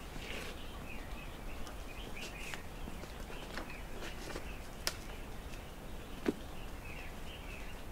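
Dry wooden sticks and bamboo poles being handled at a stick pile, giving scattered sharp knocks and clicks, with two sharper knocks past the middle. Birds chirp now and then behind it.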